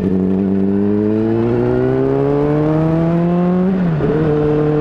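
Honda CBR600RR's inline-four engine pulling under acceleration, its pitch rising slowly, then dropping sharply almost four seconds in as it shifts up a gear and running steadily at the lower pitch.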